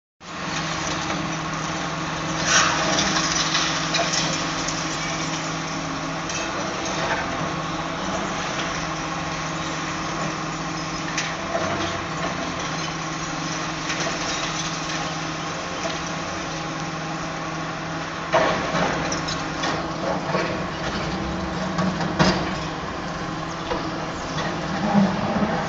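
High-reach demolition excavators' diesel engines running steadily, with the clatter and crack of concrete breaking and falling from the building being pulled down; sharper knocks about two seconds in, near the middle and several times in the last third.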